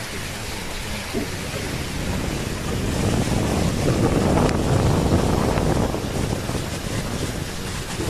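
Gale-force storm wind buffeting a phone's microphone over the steady hiss of heavy rain, swelling louder about three seconds in and easing slightly near the end.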